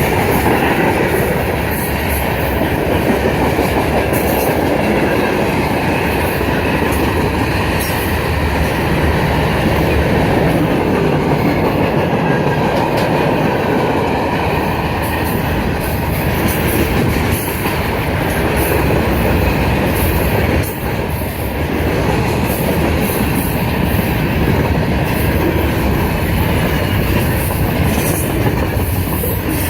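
Cars of a manifest freight train rolling past, a loud, steady rumble of wheels on rail that dips briefly about two-thirds of the way through.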